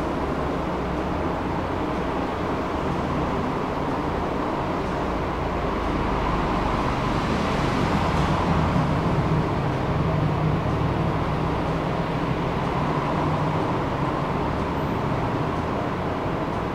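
Tram running along its tracks: a steady rumble of wheels on rails and traction motor hum, growing a little louder about halfway through.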